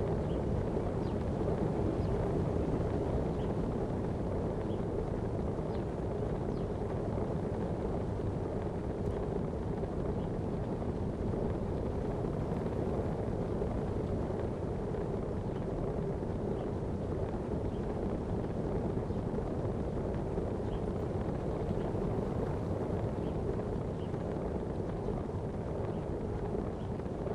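Steady wind noise on the microphone with a constant low hum underneath.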